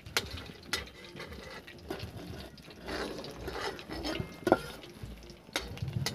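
Soya chaap rolls slid off a steel plate into hot oil in an iron kadhai: a few sharp clinks of steel plate and spatula against the pan, the loudest late on, over a faint sizzle of frying.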